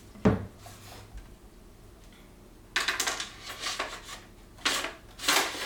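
A sharp knock, then a run of short scrapes and clacks as a Festool HKC 55 track saw is fitted and slid onto its FSK guide rail.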